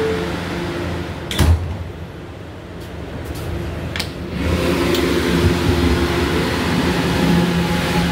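R211 subway car doors: the last note of the door-closing chime, then the doors shut with a loud thud about a second and a half in. After a quieter few seconds and a click, the train starts to pull out, its motors and running gear humming louder from about halfway through.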